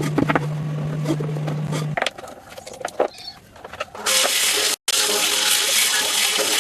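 A steady machine hum with a few knocks, cutting off about two seconds in; after a quieter stretch with scattered knocks, a woodworking power tool starts cutting wood about four seconds in, a loud, steady hiss.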